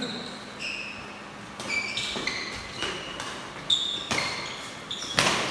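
A series of sharp knocks or clinks, each with a brief high ringing tone at a different pitch, coming about one or two a second and louder near the end.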